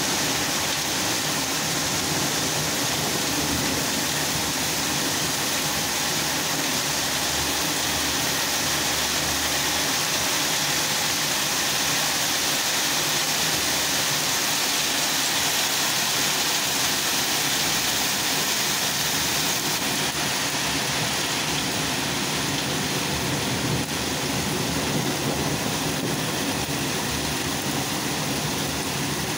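Heavy hail falling steadily, a dense, even hiss of stones striking roofs and ground.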